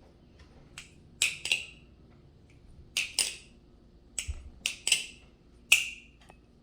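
Marcolo C116 aluminium-handled balisong being worked in the hands: a string of about ten sharp metallic clacks, several in quick pairs, each with a brief ring. The blade and handles knock together while it is checked for play, and it shows none.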